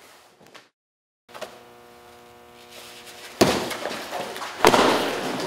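A steady humming tone, then two heavy blows about a second apart as freestanding punching bags are struck and knocked over. Each hit is followed by about a second of noise as the bags tip and rock on the mat.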